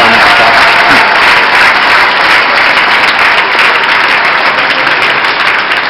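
Large arena crowd applauding, a dense, steady clapping that eases slightly near the end.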